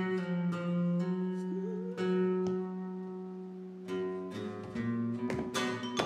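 Plucked acoustic guitar music, single notes ringing out over a held low note; sparse and softer in the middle, then quicker, busier plucking in the last two seconds.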